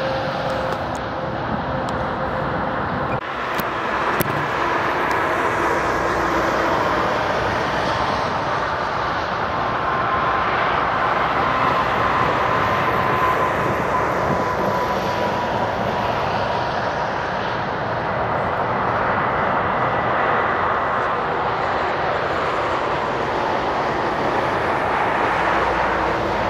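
Steady highway traffic noise from cars and a tractor-trailer on a 6% interstate grade: tyre and engine noise, with a slowly falling whine in the middle. There is a single sharp knock about four seconds in.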